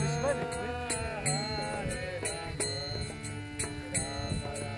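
Devotional mantra chanting music: voices singing a bending melody over a steady beat of high metallic strikes.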